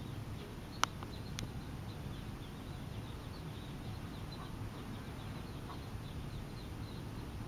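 Mallard ducklings peeping, a steady stream of short high peeps. A sharp click sounds about a second in, with a second one just after.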